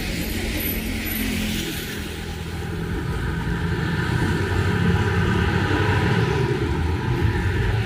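A motor vehicle's engine drawing nearer, growing slowly louder through the second half, over a steady hiss of heavy rain.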